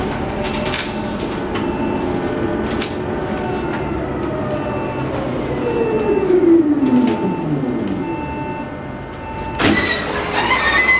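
Proterra Catalyst battery-electric bus heard from inside while driving: steady road rumble with the electric drive's whine, which glides down in pitch around the middle. Near the end there is a sudden knock, and the whine then rises again.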